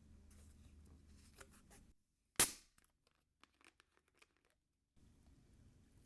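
Soda can being opened: faint handling clicks, then one sharp crack of the tab about two and a half seconds in, followed by a few faint crackles of fizz.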